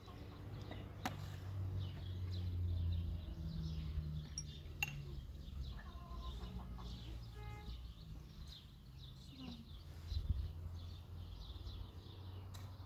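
Chickens clucking and small birds chirping around a yard, over a steady low hum, with a couple of sharp clinks like tea glasses set down.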